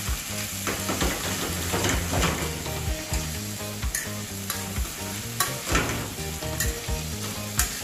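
Corned beef with sliced peppers and onions frying and sizzling in olive oil in an aluminium pot, while a fork stirs it, scraping and clicking against the pot now and then.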